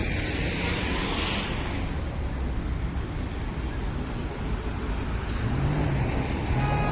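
City street traffic: a steady low rumble of cars. A vehicle goes past with a hiss about a second in, and an engine note swells near the end.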